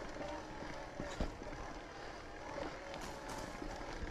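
Mountain bike rolling over a dirt and rock trail: tyre noise and the rattle of the bike, with a sharp knock about a second in.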